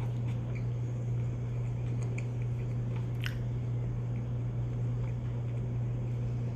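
A person chewing a cracker, with a few faint crunches, over a steady low hum.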